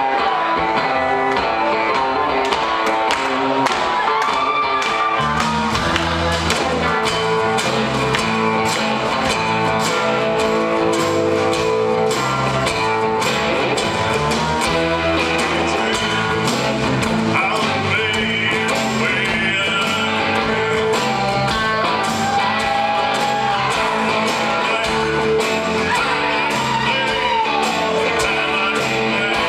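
Live country-rock band playing: acoustic and electric guitars, bass and drums, with a man singing lead. The low end fills out about five seconds in.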